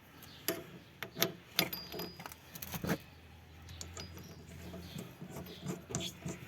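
Metal tools and suspension parts clinking as the rear shock absorber is fitted back onto its mount: a handful of sharp metallic knocks and clicks in the first half, then quieter handling.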